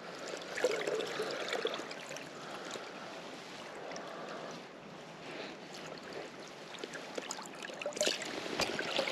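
River water running steadily close by, with short, irregular splashes between about half a second and two seconds in and again near the end.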